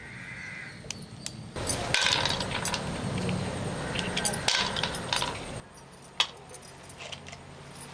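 Apple snail shells clinking against one another and against a clay bowl as hands pick through them, a run of small clicks and clinks for a few seconds from about a second and a half in, with one sharper click later.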